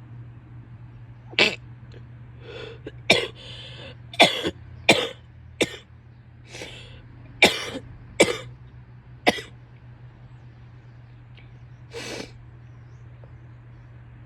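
A woman coughing in a fit: a run of short, sharp coughs, several in quick succession, followed after a pause by one softer cough near the end.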